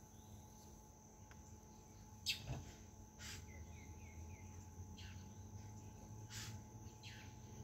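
Insects trilling: a faint, steady, high-pitched drone. A few short, sharp downward calls sound over it, the loudest about two seconds in, with a quick run of four small chirps shortly after.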